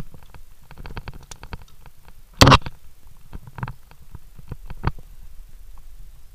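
Clicking, scraping and knocking of via ferrata gear as carabiners slide along and knock against the steel safety cable, with one loud knock about two and a half seconds in, over low rubbing noise.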